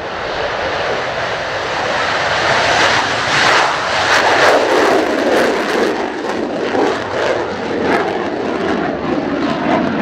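Mitsubishi F-2 fighter's single General Electric F110 turbofan at full afterburner on the takeoff run and climb-out. The loud jet roar builds over the first few seconds, with crackling from about three seconds in as the jet goes by.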